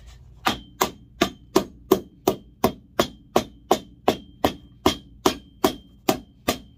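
Hammer driving nails through a new heel into a boot's heel base: a steady run of about eighteen sharp blows, about three a second, several with a brief metallic ring.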